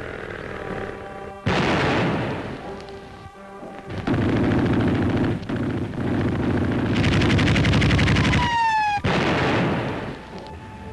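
Battle sound effects over a film score on an old soundtrack: sudden shell blasts, then a long stretch of rapid machine-gun fire. Near the end, a short falling whistle leads into another blast.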